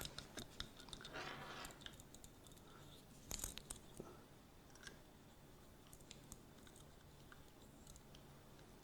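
Faint handling noises of a small plastic webcam tripod being screwed onto the webcam: a soft rustle and a few light clicks, the sharpest about three and a half seconds in, then near silence.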